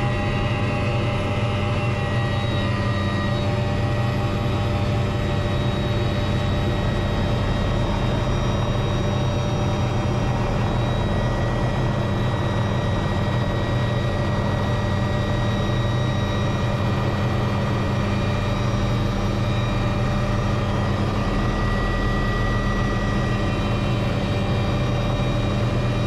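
Helicopter engine and rotor running steadily in flight, a constant low drone with a steady high whine over it.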